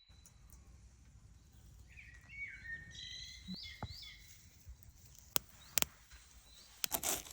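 Birds chirping over a low outdoor background, in short gliding calls that rise and fall. Near the end come a few sharp clicks and then a run of crackling.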